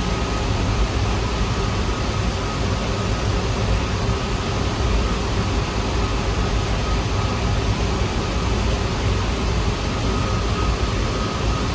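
Steady rumble and hiss of a New York City subway train, with faint steady tones above it and no sudden sounds.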